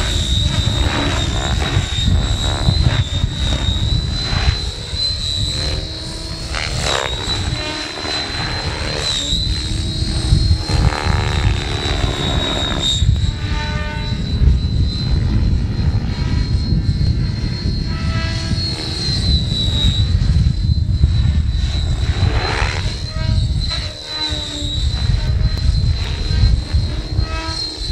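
Miniature Aircraft Furion 6 radio-controlled helicopter flying high overhead: a steady high-pitched whine that wavers slightly, with lower tones gliding up and down as it manoeuvres, over a strong low rumble.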